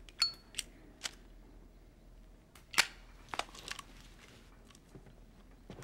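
A few scattered sharp clicks and knocks over a quiet room, the first followed by a brief metallic ring and the loudest about three seconds in.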